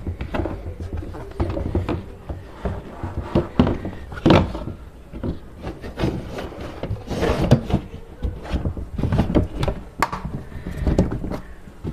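Molded plastic panels of a battery trolley knocking and rubbing against each other as the front panel is worked down into the side panels' slots. The knocks and scrapes are irregular, with the loudest about four seconds in and again near the seven-second mark.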